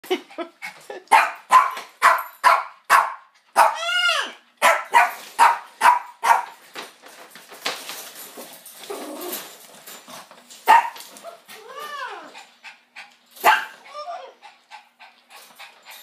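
A small dog barking in quick succession, about two barks a second, for the first six seconds, with a few drawn-out rising-and-falling cries among the barks. Midway, a burst of rustling as the macaw flaps its wings over the crate.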